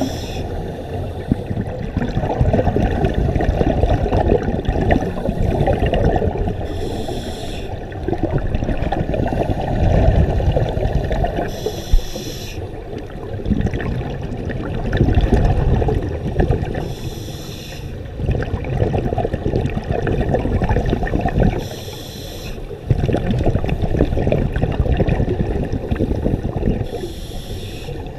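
Scuba divers breathing through their regulators underwater: a steady gurgling rumble of exhaled bubbles that swells and dips, with a short hiss about every five seconds, which fits each inhalation.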